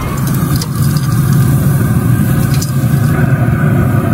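Steady low rumble of a grill's burners running under the grate, with a couple of light clicks of metal tongs on the grill.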